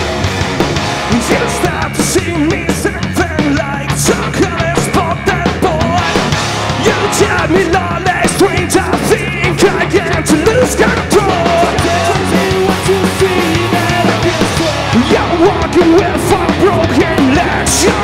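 Live rock band playing loudly: electric guitar, bass and drum kit, with a male singer's voice wavering over the mix from about two seconds in.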